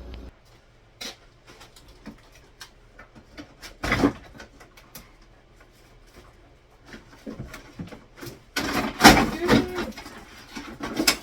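Scattered knocks and clatter of household things being handled and set down, with one louder knock about four seconds in and a busier run of knocks near the end.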